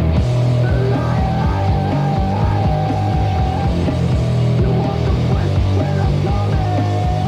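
Loud punk rock song from a demo cassette. About a second in, a high note is held for nearly three seconds over the steady band sound.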